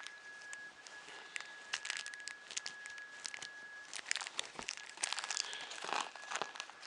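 Small plastic parts bag crinkling and rustling in the hands as the screws, nuts and bolts are got out of it, with scattered light clicks.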